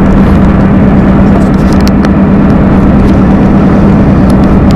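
Steady road and engine noise inside a moving car's cabin: a constant low rumble with a steady hum.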